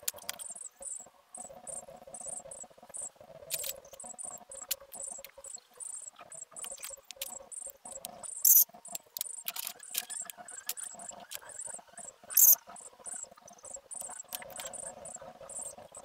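Felt-tip marker tips squeaking and scratching across paper in many short, uneven strokes while numbers are coloured in, over a faint steady hum. Two much louder sharp scrapes come about halfway through and again a few seconds later.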